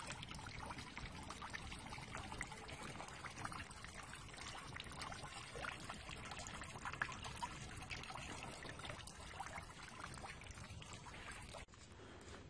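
Water steadily splashing and trickling into a fish pond, like a small fountain's fall, with many small splashes. It stops abruptly near the end.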